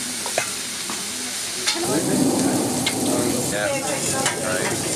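Food sizzling on a hot griddle plate: a steady frying hiss with scattered small clicks and pops. A fuller low background murmur rises about two seconds in.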